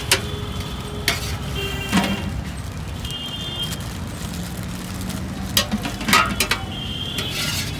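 Metal ladle knocking and clinking against a steel curry pot and an aluminium tray as curry is spooned into a foil packet, a few sharp knocks with a cluster about six seconds in. Steady street traffic noise underneath, with a few brief high tones.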